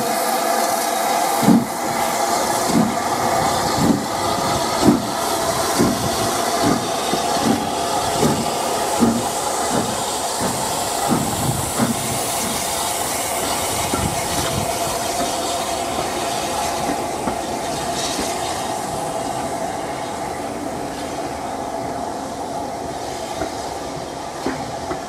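Southern Railway S15 class 4-6-0 steam locomotive No. 847 starting away: regular exhaust chuffs about one a second, gradually quickening, over a steady hiss of steam from around the cylinders. In the second half the beats fade into the steady rumble of the tender and coaches rolling past on the rails.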